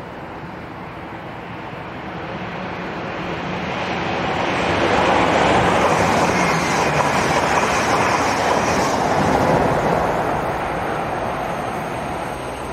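LNER Azuma high-speed train passing at speed: a rushing of wheels and air that builds over the first few seconds, stays loud through the middle, and fades near the end.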